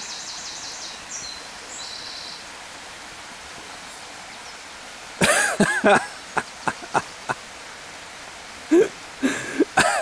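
Water of a small stream running steadily, with a songbird chirping in the first two seconds. From about halfway, a person's voice comes in short loud outbursts, with a few more near the end.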